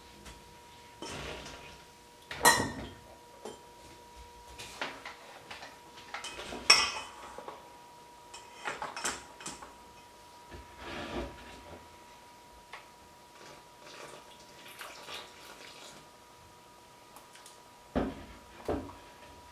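Kitchen utensils clinking and clattering against a stainless steel bowl and dishes in short separate knocks, the loudest about two and a half and seven seconds in and two more near the end. A faint steady high tone runs underneath.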